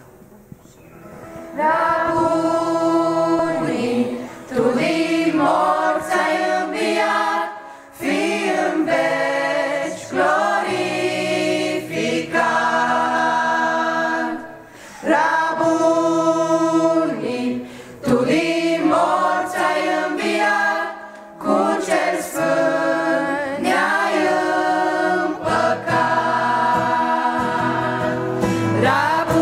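Mixed church choir singing a Romanian Christian hymn in phrases a few seconds long, beginning about a second and a half in.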